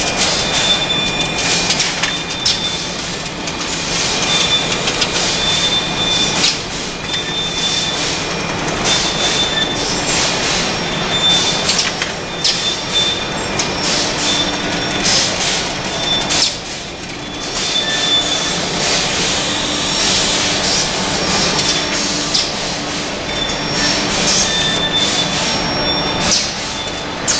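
Automatic cupcake and madeleine production line running: steady machine noise from the conveyors and units, with irregular clicks and short high squeals recurring every second or two.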